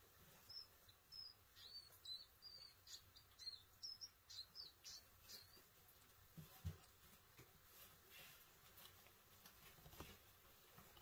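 Faint, high-pitched squeaks from a young white rat, about two a second for the first five seconds or so, followed by a soft low thump.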